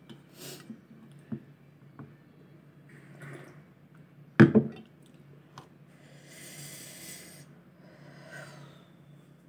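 Eating noodle soup from a ceramic bowl: a few light clicks of chopsticks and a plastic spoon against the bowl, a single sharp knock about four and a half seconds in as the bowl is drunk from, then long breathy sniffles through a runny nose.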